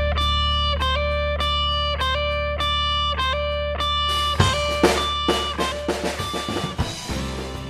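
Background music: a repeated plucked guitar figure over a steady low bass, giving way about four and a half seconds in to a run of drum hits, then fading out near the end.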